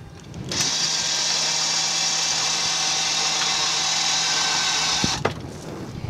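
Electric motor of a homemade ladder-mounted cable hoist running steadily while it lifts a rooftop air conditioner up the ladder. It starts about half a second in and cuts off sharply about five seconds in.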